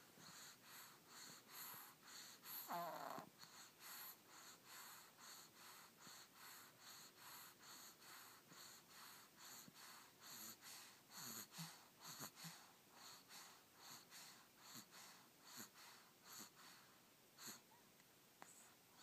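Faint, rapid snoring: breathy, even breaths about two a second. One louder breath with a whistling pitch comes a little under three seconds in.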